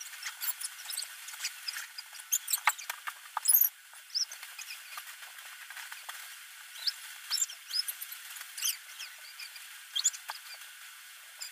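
Plastic bags crinkling and clothes rustling as they are handled and packed into a bed's storage box, in scattered short crinkles and clicks.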